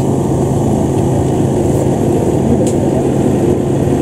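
Modified motorcycle engine running steadily at low revs, without big revving sweeps.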